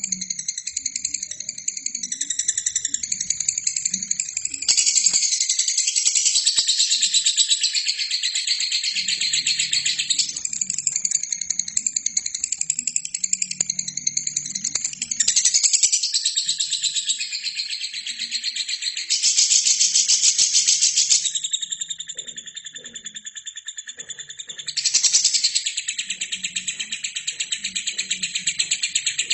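Albino lovebird singing a long, continuous, high-pitched chattering trill made of rapid pulses, swelling louder several times and easing off briefly a little past the middle.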